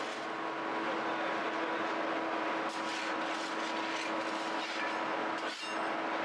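Bakery machinery running steadily, a constant hum over a rushing noise, with a brief break about five and a half seconds in.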